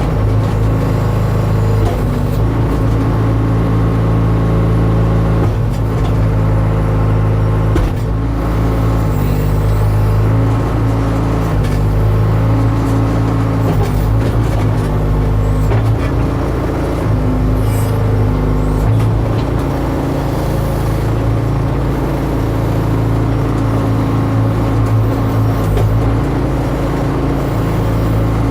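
Case 590 Super M backhoe loader's diesel engine running, its note shifting up and down in steps every few seconds, with a few sharp knocks.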